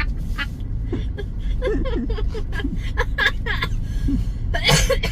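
Steady low rumble of a Toyota Innova driving, heard from inside the cabin, with people's voices over it.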